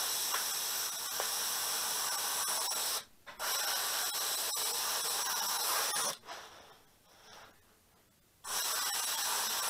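Airbrush spraying thinned black paint in three steady hisses of about three seconds each. Each one starts and stops sharply as the trigger is pressed and released, with short quiet gaps between: light passes along panel lines.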